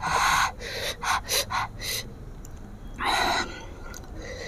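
A woman gasping, sharp breaths drawn in over and over: one long gasp, a quick run of short ones about a second in, then another long gasp. It is her reaction to the sourness and chilli heat of the green mango she is eating.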